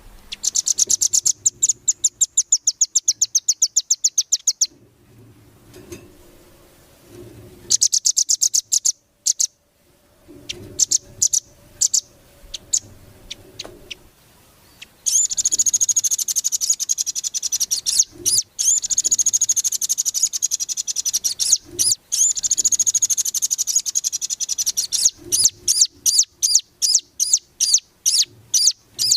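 Velvet-fronted nuthatch (rambatan) singing: rapid, high trills of quickly repeated notes in several bursts, with a long unbroken trill in the second half and separate notes about two a second near the end.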